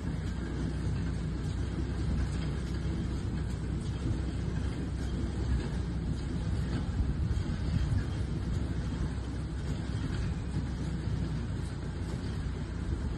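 Steady low engine rumble, heard from inside a vehicle, with a tractor working a small square baler in the hay field.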